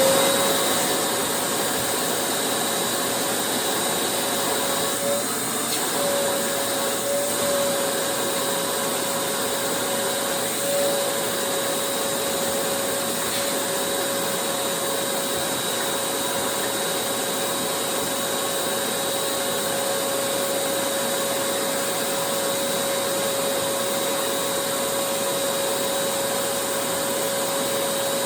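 An electric vacuum cleaner motor spins up and then runs steadily with a high whine and a rush of air. The pitch sags briefly a few times between about five and eleven seconds in, as the airflow is loaded.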